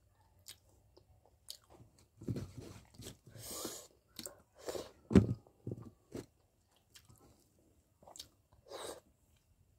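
Close-up chewing and mouth sounds of a person eating rice and fish tomato curry by hand, coming in irregular bursts, loudest about five seconds in.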